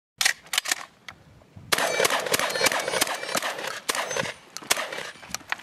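Benelli M2 semi-automatic shotgun fired in a rapid string of sharp shots, each followed by a short echo.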